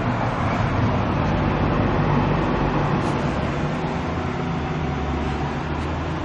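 A motor running steadily with a low hum, its pitch shifting slightly about five seconds in.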